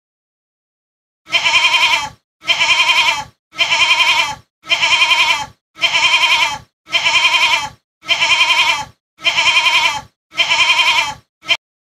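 Goat bleating: the same quavering call repeated about ten times, roughly once a second, the last one cut short.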